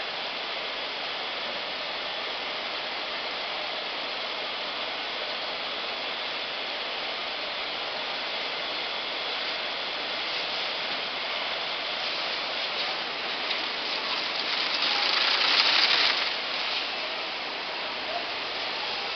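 Round drawcord braiding machines running, a steady rushing mechanical noise that swells louder for about two seconds about three-quarters of the way through.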